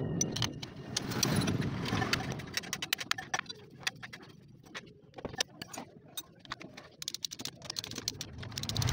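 Socket ratchet wrench clicking in quick runs of ticks as it runs down the cylinder head nuts on a Yamaha Vega ZR engine being reassembled after a piston replacement. A low rumble sits underneath, strongest in the first couple of seconds.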